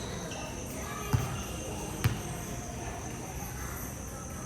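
Basketballs bouncing on a court floor: two clear thuds about a second apart, over faint voices and a steady high-pitched hum.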